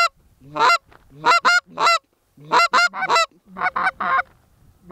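Canada geese honking: a rapid, uneven run of about a dozen loud honks and clucks, each breaking from a low note up to a high one.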